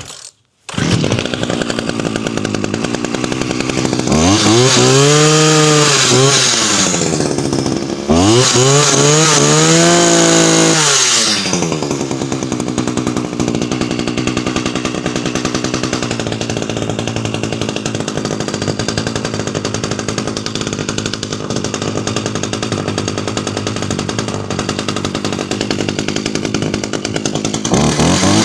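1996 McCulloch two-stroke chainsaw engine starting and running: it catches in the first second, is revved up and back down twice, then runs steadily at idle. It revs up again at the very end.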